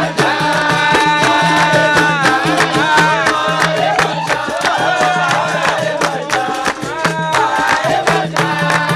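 Capoeira roda music: berimbaus played together under call-and-response singing, with the crowd clapping along in time.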